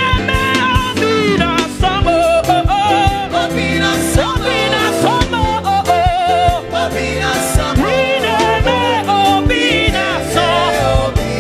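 Live gospel music: a band playing with a beat, and sustained, wavering sung vocals over it.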